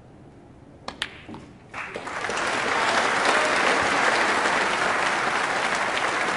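Two sharp clicks of snooker balls about a second in, then the arena crowd breaks into applause that swells and holds.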